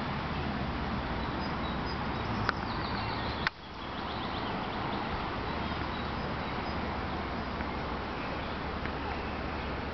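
Steady outdoor background noise with faint bird calls, broken by two sharp clicks about a second apart, the second followed by a brief dip in the sound.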